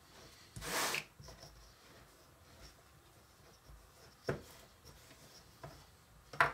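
Small wooden toy rolling pin rolling and rubbing over soft cookie dough on a plastic cutting board, faint throughout. There is a brief scraping rush about half a second in, and light knocks of the pin on the board near the middle and at the end.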